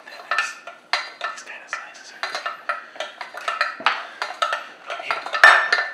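Cookware clatter: a spoon stirring and knocking around a stainless steel saucepan, with a knife clacking on a cutting board. Irregular clinks and scrapes come several times a second, and the loudest clatter is near the end.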